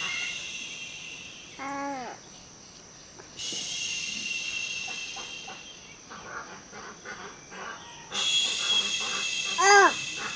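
Insects buzzing in three high, hissing spells that start and stop abruptly, typical of cicadas. A short animal call sounds twice, about two seconds in and again near the end, louder the second time.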